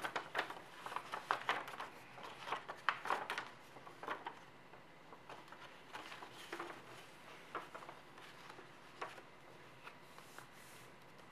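A sheet of 80 g/m² paper crinkling and rustling as it is folded and pressed into creases by hand. Short crackles come in a busy run for the first few seconds, then grow sparser, with a few single clicks later.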